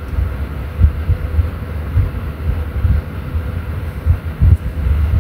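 Low rumble and irregular thumps of handling and wind-like noise on a phone's microphone as it is carried by hand while walking, with a faint steady hum in the background.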